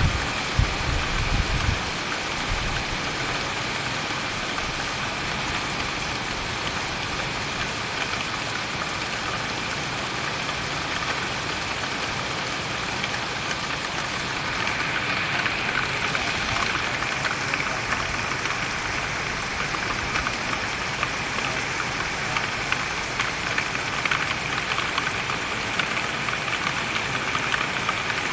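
Steady rain falling, a dense even patter, with a low rumble in the first two seconds.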